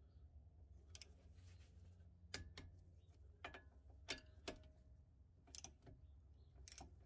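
Torque wrench ratcheting as the lower control arm bolts are tightened to 94 foot-pounds: scattered sharp clicks, some in quick pairs, over a faint low hum.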